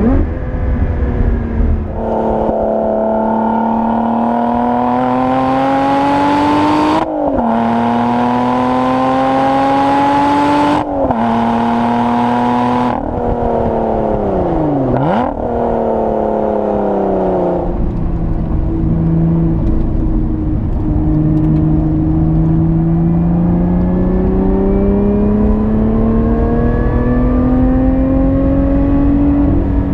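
Lotus Evora 400's supercharged V6 pulling hard through the gears, revs climbing and dropping sharply at two quick upshifts. The revs then fall as the car slows, with a brief blip on a downshift, and the engine settles lower before pulling again with slowly rising revs.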